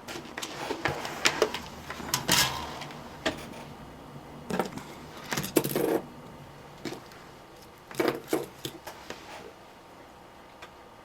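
Irregular clicks, taps and light clatter of small tools and parts being handled on a workbench while wire ends are tinned with solder, in three clusters with quieter gaps between.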